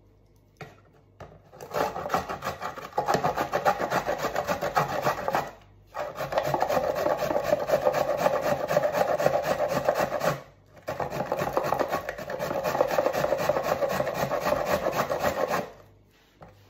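A raw carrot grated by hand on a stainless-steel grater plate over a plastic catch box: fast, even rasping strokes in three long runs with two short breaks between. A couple of light knocks come just before the first run.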